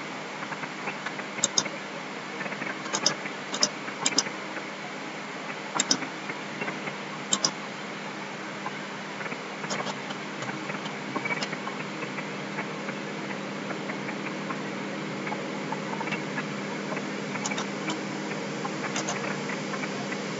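A few sharp computer-mouse clicks, mostly in the first seven seconds or so, over a steady hum and hiss.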